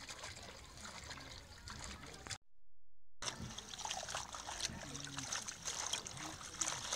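Water sloshing, trickling and splashing in a plastic basin as hands squeeze and swish leafy greens through it. It cuts out completely for about a second partway through, then resumes.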